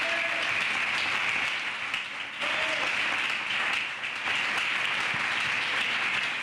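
Audience applauding steadily, with two brief dips in the clapping.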